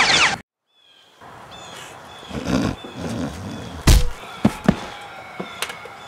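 A loud sound cuts off suddenly at the start; after a moment's silence, small birds chirp over outdoor background noise. About four seconds in comes a heavy thump, then two sharper knocks, the sounds of a scuffle.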